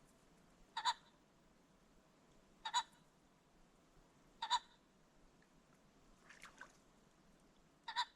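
Ring-necked pheasant calling: a short, sharp double-note call repeated five times at about two-second intervals, the fourth one fainter.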